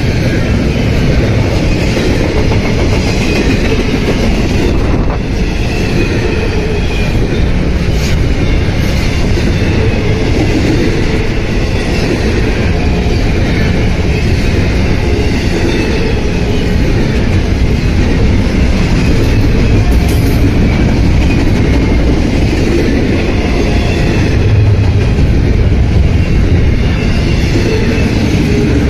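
Double-stack container well cars of a Norfolk Southern intermodal freight train rolling past close by: a steady, loud rumble and clatter of steel wheels on the rails.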